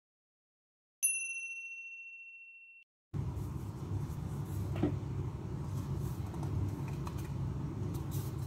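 A single bright ding, an intro chime sound effect, ringing and fading for about two seconds before cutting off abruptly. Then a steady low room hum with a few faint knocks of bowls being handled as flour is tipped into a mixing bowl.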